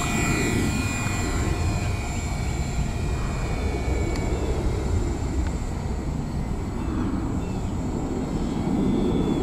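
Twinstar twin-motor RC model plane flying past and climbing away: the high motor whine drops slightly in pitch and fades over the first few seconds. Wind rumbles on the microphone underneath.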